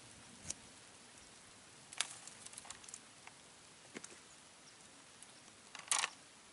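Scattered light clicks and taps: a few single ones, a short run of small ticks, and a louder quick cluster near the end.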